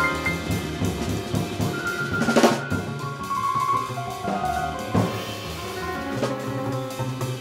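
Free-jazz quartet playing: a drum kit busy with snare, bass drum and cymbals under double bass and piano, with a soprano saxophone holding a few long notes. There is one loud crash from the kit about two and a half seconds in.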